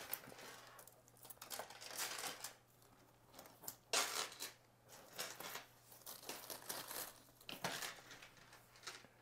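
Quilted leather handbags being handled and turned around: irregular rustling and creasing of the soft padded leather, with a few light clicks from their metal chain straps, loudest about four seconds in.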